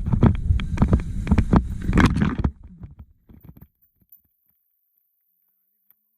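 Downhill mountain bike clattering over rough, rocky ground: a run of sharp knocks and rattles over a low rumble of wind on the microphone. The sound drops away about two and a half seconds in and is gone a second later.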